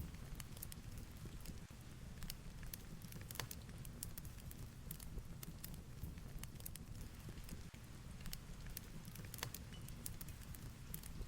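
Fireplace crackling, with sharp irregular pops, over a low steady rumble of heavy rain.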